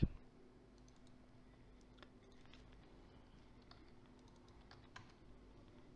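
Faint computer keyboard keystrokes and mouse clicks, a few scattered taps, over a low steady electrical hum.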